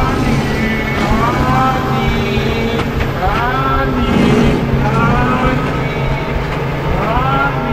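Eerie horror-film score: a low steady drone under noise, with a wavering pitched swoop that rises again about every one and a half to two seconds.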